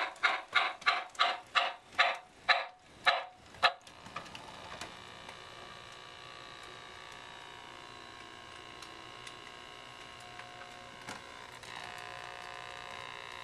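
Steam chuffs from the electronic Loco-Sound system of an MTH RailKing Southern Pacific Daylight 4449 O scale locomotive, about three a second, spacing out and stopping a few seconds in. After that comes a steady electric hum that is a little louder near the end.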